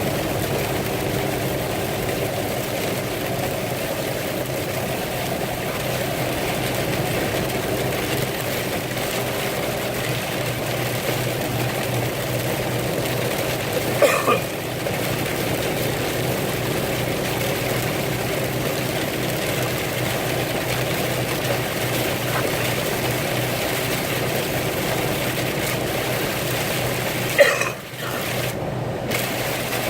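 Steady vehicle running noise, a low engine hum under a constant hiss, broken by a brief knock about halfway through and another near the end.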